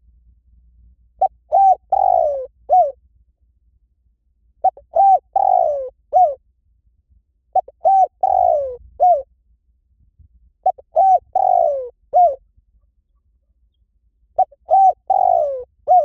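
Spotted dove cooing. Its phrase is a few short coos, a longer falling coo and a short final coo, and it repeats five times, about every three to three and a half seconds.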